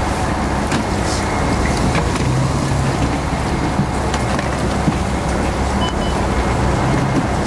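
Bus engine running with a steady low hum under continuous noise, and a few light knocks.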